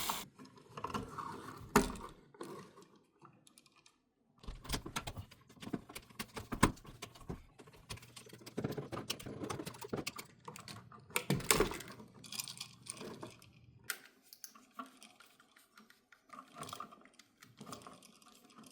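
Irregular clicks, taps and scraping of hands and a screwdriver working on a wall light switch: screws being turned and wires handled as the old switch is taken out of the electrical box.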